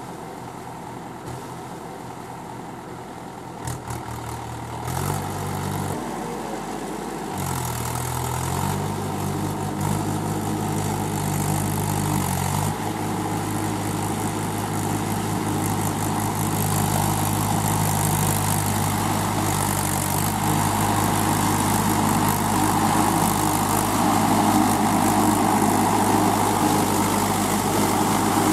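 Mahindra 475 DI tractor's diesel engine running as it works through deep mud on steel cage wheels. The engine pitch shifts up and down several times in the first half, and the sound grows steadily louder toward the end.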